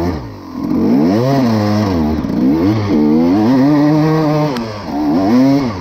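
KTM EXC 300 two-stroke enduro motorcycle engine revving up and down under way. The revs climb and fall several times, hold high through the middle, and drop off near the end.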